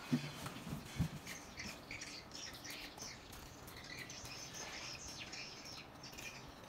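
Small birds chirping, many short calls one after another. Two dull thumps near the start and about a second in are the loudest sounds.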